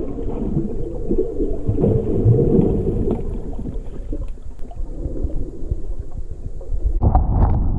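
Underwater water noise picked up through a waterproof camera housing: a muffled, continuous low rumble. About seven seconds in it turns louder and rougher, with a run of short knocks as the camera moves.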